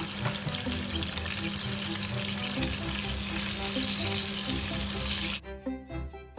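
Chicken thighs and green beans sizzling in a stainless steel frying pan under background music. The sizzle cuts off suddenly about five seconds in, and only the music remains.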